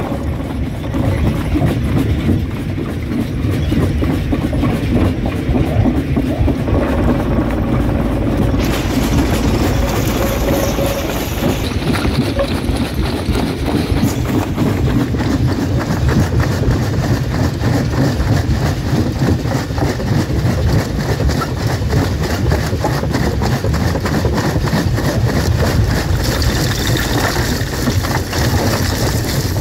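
Rock crusher running as stone is fed through it: a heavy, steady machine rumble with dense rattling and grinding of rock. The sound changes character a couple of times along the way.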